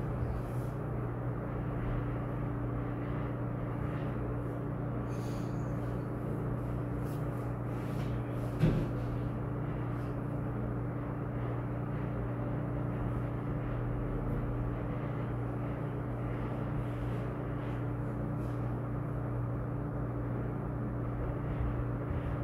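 Steady low hum over a background hiss, with one short knock about nine seconds in.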